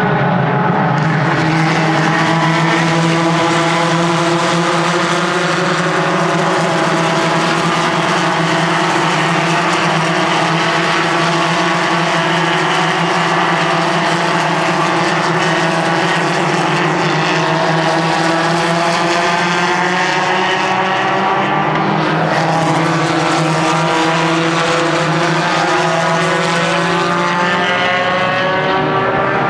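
A large pack of Spec Racer Ford Gen3 race cars running on track, dozens of Ford four-cylinder engines heard at once as a loud, continuous din, their many pitches overlapping and slowly rising and falling as the cars accelerate and pass.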